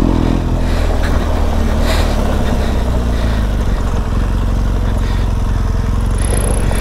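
Motorcycle engine running while being ridden along a dirt track, heard from the riding bike. The engine note eases about half a second in and then holds steady.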